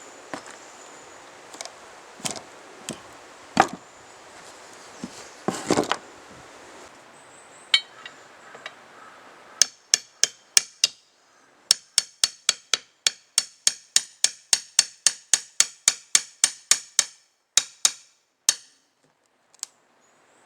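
Hammer striking on a wooden deck: a few scattered knocks, then a fast, even run of hammer blows, about four a second, broken by short pauses, as nails are driven in during the deck repair.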